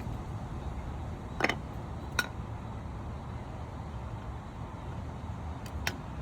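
Three short, sharp metal clicks as new brake pads are handled and fitted into a GMC Yukon's front caliper bracket. The second and third clicks come about a second and three and a half seconds after the first. A steady low rumble runs underneath.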